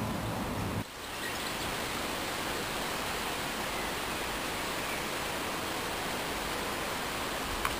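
Steady, even hiss of outdoor background noise, dropping briefly about a second in and then running on unchanged, with one faint click near the end.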